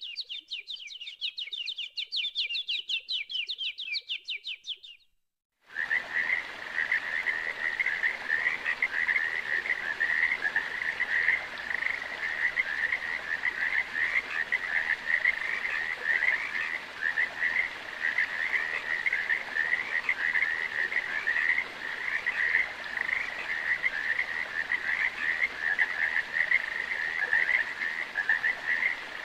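Rapid high-pitched chirping for the first five seconds, then a brief gap. After that a dense, steady chorus of pulsing animal calls runs over a faint hiss.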